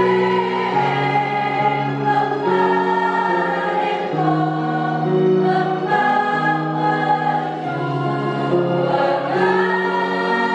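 A women's choir singing in harmony: several voice parts hold notes together, with the chord moving every second or so.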